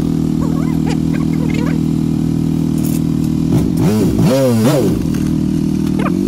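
Honda CBR150R's single-cylinder four-stroke engine idling just after being started on fresh oil, given a few quick throttle blips about four seconds in. Its idle settles a little higher near the end.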